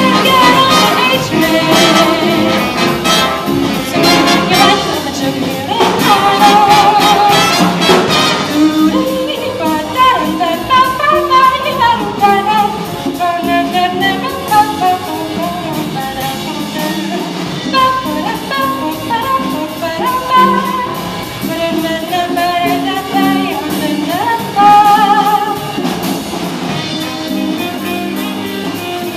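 Jazz big band with saxophones, trumpets and upright bass playing a swing tune behind a female vocalist singing.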